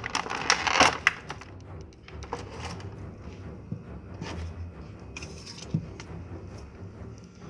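Plastic action figure and its fist accessories being handled, with packaging crinkling: a dense burst of rustling and clicks in the first second, then scattered light clicks and taps.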